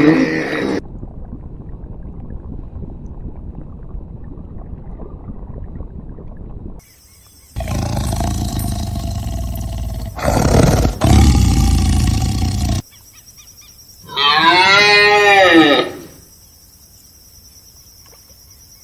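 A run of separate animal sound clips: a low rumbling noise, then a louder rough stretch, then one long pitched call that rises and falls over about two seconds.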